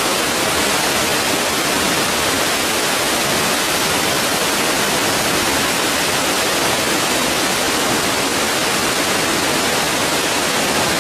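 Steady rush of running water, an even, unbroken hiss.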